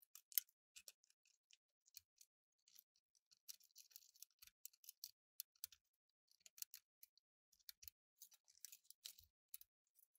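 Faint, irregular small clicks and scratchy rustles of wiring harnesses and connectors being handled and pushed into place inside an open cassette deck chassis.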